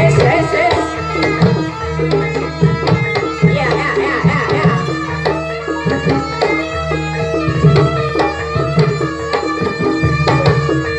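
Javanese jaranan gamelan music: hand-played kendang drums beating quickly, some strokes gliding in pitch, over sustained ringing tones from the bronze gamelan.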